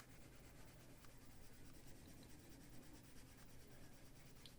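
Faint scratching of a Prismacolor coloured pencil stroking across paper, very quiet, with a couple of tiny ticks.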